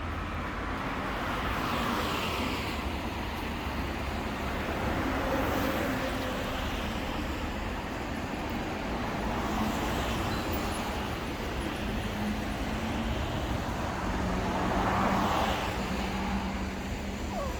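Road traffic: a steady rumble with cars passing, their tyre hiss swelling and fading three times.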